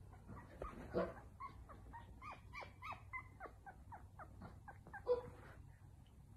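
Newborn Yorkshire terrier puppy whimpering in its sleep: a run of short, high squeaks, each falling in pitch, about four a second, with a louder squeal about a second in and another near the end.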